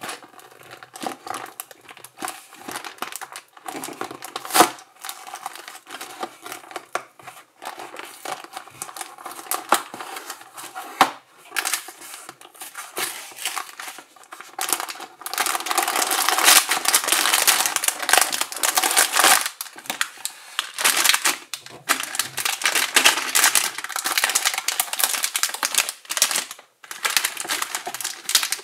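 LEGO set packaging being opened and handled: plastic and cardboard crinkling and tearing, with scattered clicks. It grows busier and louder about halfway through.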